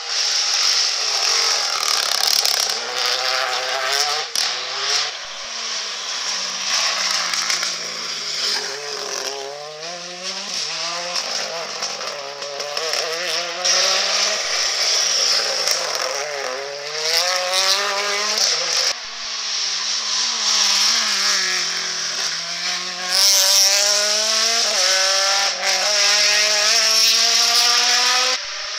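Rally cars at racing speed through a tarmac hairpin, engines revving hard through gear changes, the pitch climbing and dropping again and again. The sound changes abruptly about two-thirds of the way through, where one car gives way to the next.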